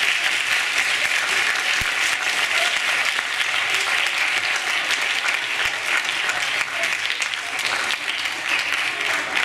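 Audience applauding steadily, a dense clatter of many hands clapping that eases slightly in the later part.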